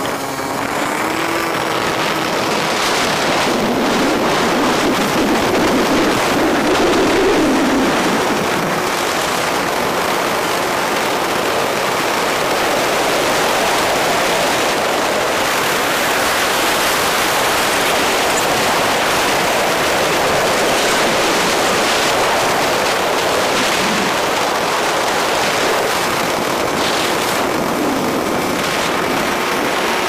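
Steady rush of wind on the microphone of a moving motorcycle, with the bike's engine running underneath; the engine note rises near the end.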